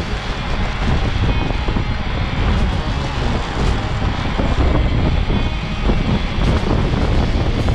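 Wind buffeting the microphone of a camera on a racing bicycle at speed: a loud, uneven low rush with no clear breaks.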